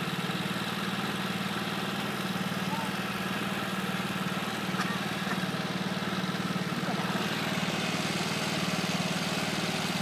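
Small vehicle engine running steadily at low speed, a constant low hum with an even pulse.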